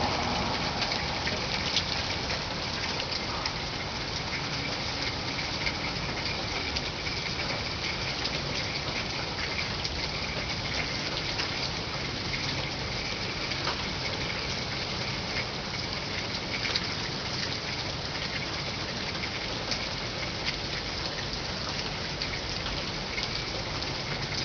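Steady rain falling, with scattered nearer drops ticking.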